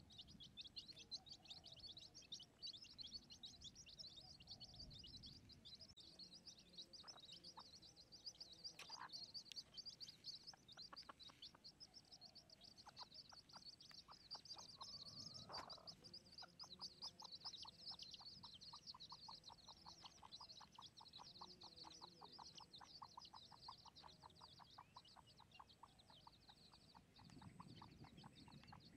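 Faint, continuous high-pitched chirping of small animals. From about halfway it is joined by a fast, even run of lower clicking pulses, several a second, and a single rising call.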